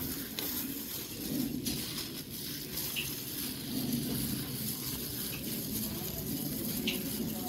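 Plastic-gloved hands mixing a dry flour coating in a large metal tray: a steady soft rustle and scrape of flour being turned over against the tray.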